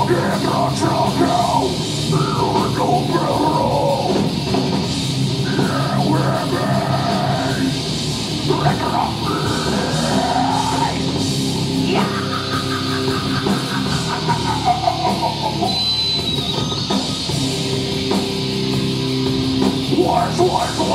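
A heavy metal band playing live: electric guitars, bass and a drum kit at full volume, with a vocalist singing and shouting over the top.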